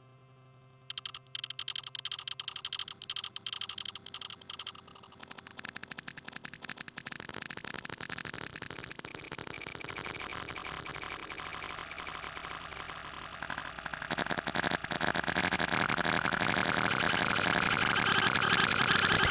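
Logo audio run through heavy digital effects: faint steady tones, then about a second in a harsh crackling, distorted noise cuts in and grows steadily louder toward the end.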